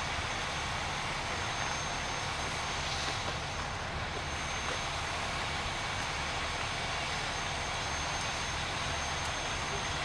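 Steady engine drone with a broad hiss, unchanging throughout.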